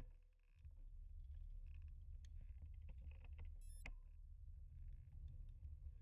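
Low, muffled wind and road rumble picked up by a bike-mounted action camera while riding, with a few light clicks and a brief high-pitched squeak nearly four seconds in.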